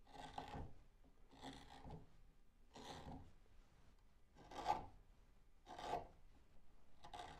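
BeaverCraft K8a/14 compact short bent gouge slicing into wood, hollowing out the undercut of a carving: six short scraping cuts about a second apart, each one lifting a shaving.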